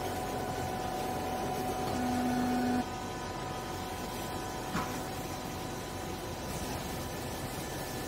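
Vertical hydraulic clothing baler running with a steady mechanical hum and hiss as its ram drives the press plate down. A louder steady tone comes in about two seconds in and cuts off sharply under a second later. A single click follows near the middle.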